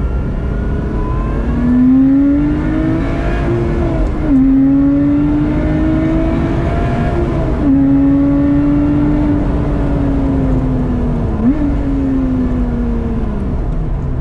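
Lotus Exige engine pulling hard through the gears. Its pitch climbs, then drops at upshifts about four and eight seconds in. It then eases off, with a quick throttle blip on a downshift near the end, and winds down.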